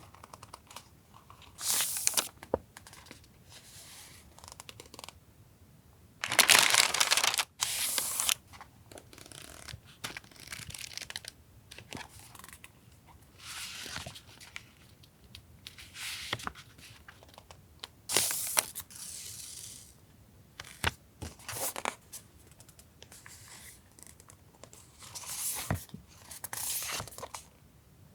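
Paper stationery and its plastic wrapping being handled and unpacked by hand: rustling, crinkling and tearing sounds in irregular bursts, the loudest about six to eight seconds in.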